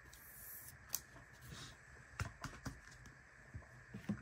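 Faint handling of Panini Prizm trading cards: soft sliding, with a few light taps and clicks as the cards are shuffled and set down.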